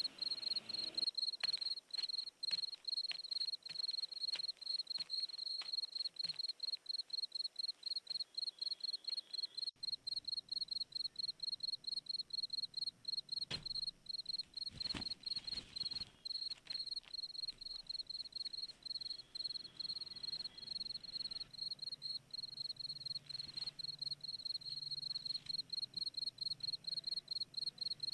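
Crickets chirping in a steady, even pulse, a high trill repeated several times a second. A couple of sharp clicks sound about halfway through.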